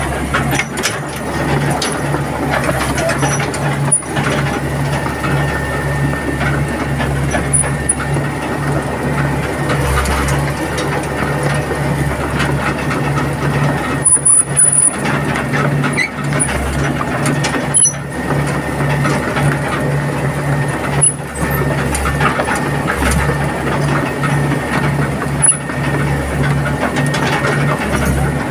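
Excavator travelling on its tracks, heard from inside the cab: the diesel engine running with a low pulse about twice a second, over a steady mechanical clatter from the undercarriage.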